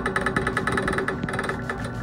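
Bench drill press running with its twist bit cutting into a hydraulic pump's metal valve block: a steady motor hum with a fast, even chatter from the bit.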